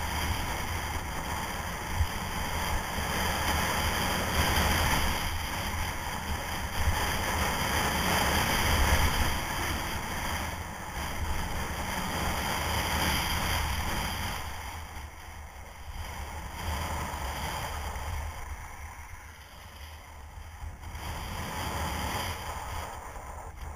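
Wind rushing over the camera microphone and skis hissing and scraping over firm groomed snow during a downhill run. The rush is loudest in the first half and drops off after about fourteen seconds as the skier slows.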